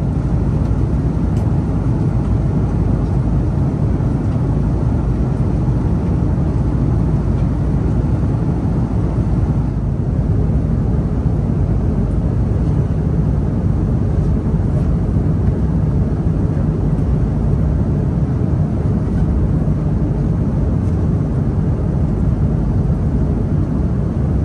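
Steady cabin noise of an Airbus A330 in flight: an even rush of airflow and engine rumble, strongest in the low end, with no breaks or changes.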